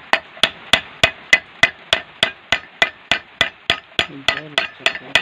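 Hand hammer striking a metal mug held over an iron rod stake, about three and a half even blows a second, each with a short metallic ring: hand-hammering a textured finish into the mug.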